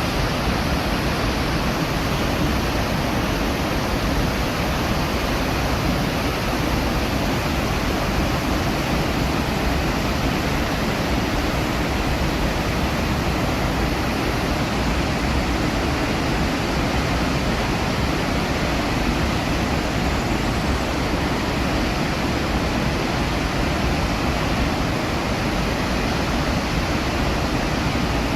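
Iguazu Falls: a huge waterfall's steady roar of falling water, an even, unbroken rush.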